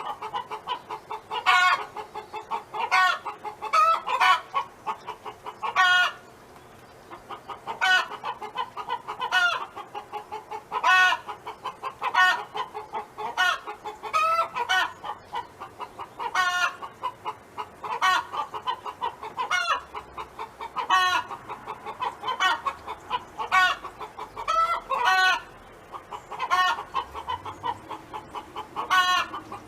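A domestic hen clucking without pause: a fast run of soft clucks, broken every second or two by a louder, sharper call. It stops briefly twice.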